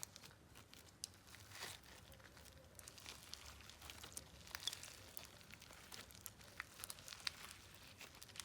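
Faint crackling and small pops of a half-floam slime made with micro bead sheets being squeezed and stretched by hand.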